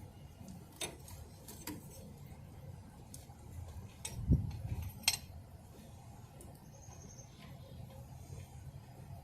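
Scattered sharp clicks and clinks of tools and metal parts being handled, with one dull thump a little past four seconds in, over a low steady rumble.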